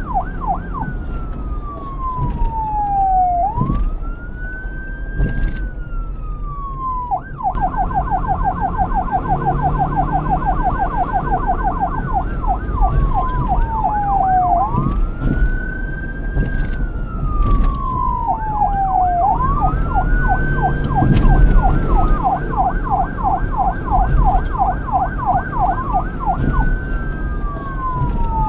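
Police car electronic siren switching back and forth several times between a slow wail, rising over about a second and falling over about two, and a fast yelp of several sweeps a second. A low rumble runs underneath.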